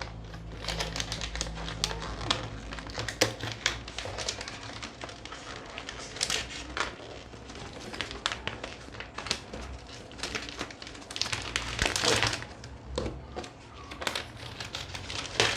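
Packaging of a helmet box being handled and pulled out, crinkling and rustling with irregular crackles and clicks.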